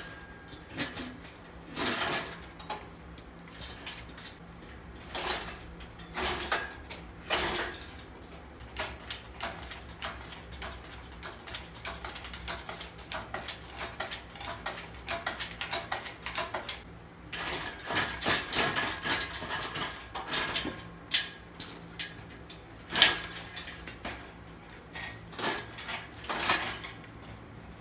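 Engine-hoist chain and crane clinking and clanking in irregular bursts as a hanging BMW M50 engine is swung and maneuvered over the engine bay, busiest in a run of rattles past the middle and again near the end.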